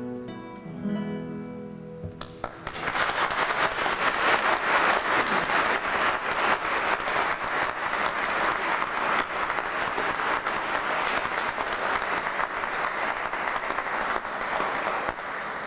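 Last notes of a nylon-string classical guitar, then audience applause starting about two and a half seconds in and dying down near the end.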